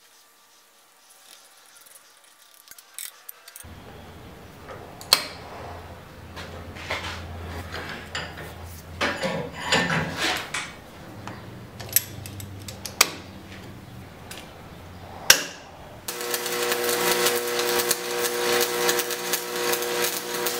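Scattered metal clanks and knocks from tools and steel on a vise. From about three-quarters of the way in comes the steady buzz and crackle of electric arc welding as a mild-steel box holding the ball bearings is welded shut.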